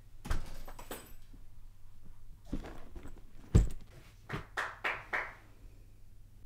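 A hard-shell suitcase being packed and shut on a bed: handling knocks and the rustle of clothes, then a dull thump about three and a half seconds in as the lid closes, followed by a few short scraping sounds.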